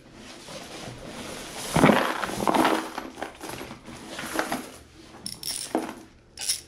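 Hands rummaging through a box of loose coins and small metal tools, the coins clinking and rattling against each other, with a louder clatter about two seconds in.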